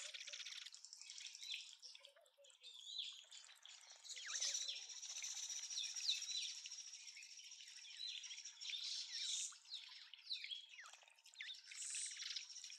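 Small garden birds chirping and twittering in many short, quick calls, over water trickling from a small fountain in the feeder tray. A thin steady high tone runs beneath from about four seconds in.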